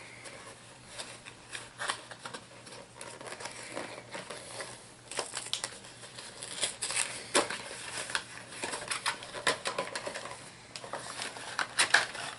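HeroClix booster pack being opened and its contents handled: packaging rustling and crinkling, with many small clicks and taps of plastic figures.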